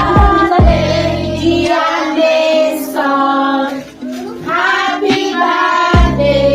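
Background music with a singing voice over a beat; the bass and drums drop out for a few seconds in the middle, leaving the singing, then come back near the end.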